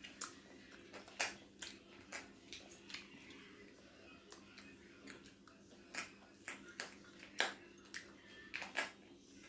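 A person eating mud crab by hand: scattered, irregular soft clicks and smacks of chewing and picking at the crab shell, a few louder ones about a second in and later around six, seven and nine seconds in.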